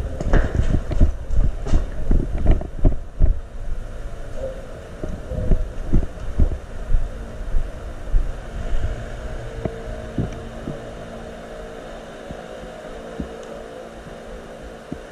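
Footsteps on a concrete floor picked up by a body-worn camera as the player hurries along, dull thumps about two or three a second for the first few seconds, then fewer and softer over a steady low hum.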